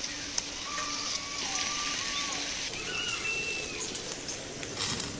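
Charcoal fire sizzling and crackling in a steady hiss, the sound of fat dripping onto hot coals under whole chickens roasting on spits. A few faint bird chirps come in the middle.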